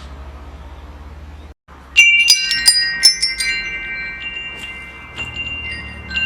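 A low steady hum that cuts off abruptly about one and a half seconds in, then metal wind chimes struck in a quick cluster about two seconds in, their high tones ringing on and slowly fading, with a few lighter scattered strikes after.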